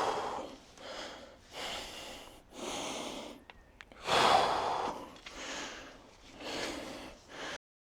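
A man breathing hard, about seven heavy breaths roughly one a second, the loudest about four seconds in, cutting off suddenly near the end.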